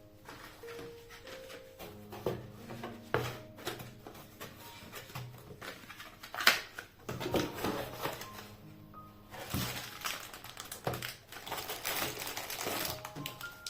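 Soft background music with hand-handling sounds over it: scattered sharp clicks and taps, then a stretch of crinkling and rustling about two-thirds of the way through.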